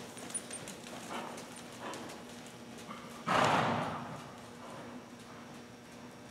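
Horse's hoofbeats on soft arena sand: a few muffled thuds about a second apart, then a loud rushing burst about three seconds in that fades within a second.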